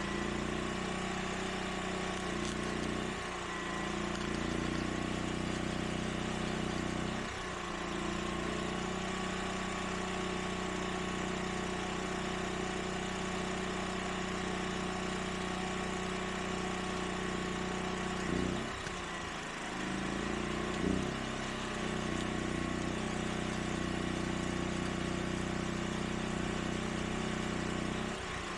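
Predator 10,000-watt portable generator engine running steadily, its pitch dipping and recovering briefly a few times.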